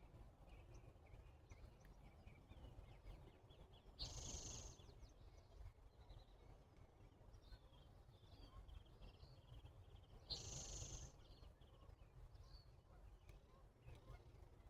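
Faint natural ambience of small birds chirping here and there, with two louder harsh calls, one about four seconds in and one about ten seconds in, over a steady low rumble.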